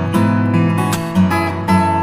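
Background music: an acoustic guitar playing, with chords struck about every half second.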